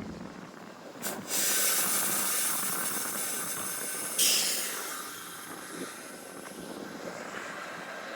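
A train passing close by: a sudden rush of wheel and wind noise about a second in, loudest for about three seconds with a sharp peak near the four-second mark, then easing to a steadier, quieter rumble.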